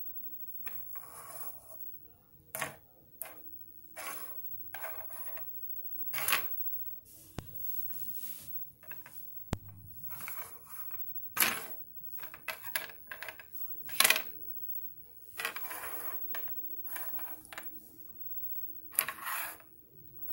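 Mini plastic football helmets being pushed, flicked and knocked together on a wooden tabletop: irregular sharp clacks and short scraping slides, with quiet gaps between plays.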